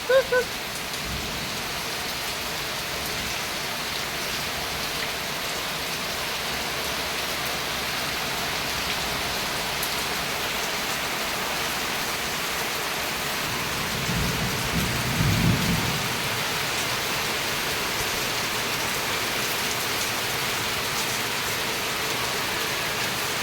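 Steady rain falling, an even hiss throughout. About two-thirds of the way through, a low rumble of thunder lasts about two seconds.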